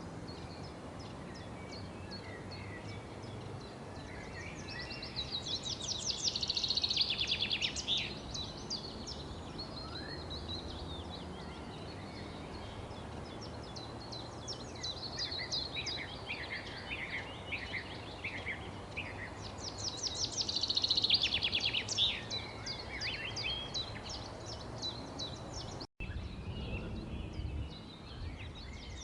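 Several songbirds chirping and trilling in quick runs of high notes, loudest about a quarter of the way in and again about two-thirds in, over a steady outdoor background hiss. A split-second break in the sound comes near the end.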